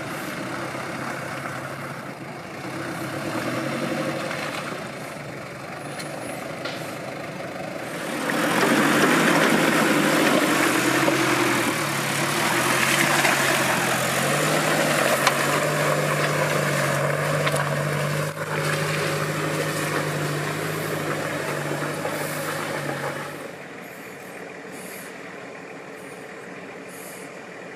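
A 4x4 off-road vehicle's engine working under load. It runs steadily at first, then rises in pitch and gets much louder about eight seconds in, holds high revs, and drops away about twenty-three seconds in.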